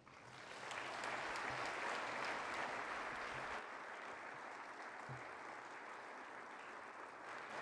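Audience applauding. The clapping swells up within the first second and then eases slightly, but keeps on steadily.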